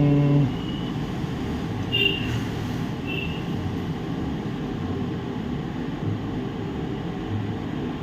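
Steady background rumble with a low droning tone that cuts off about half a second in, and two short high-pitched chirps around two and three seconds in.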